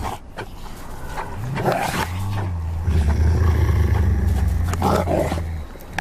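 Iberian wolves growling and snarling in a fight for dominance: a low, rough growl held through the middle, with sharper snarls about two seconds in and again near the end.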